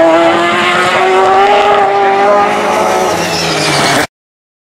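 GT race car's engine held at high revs through a corner, its pitch rising slightly and then holding steady, before the sound cuts off suddenly near the end.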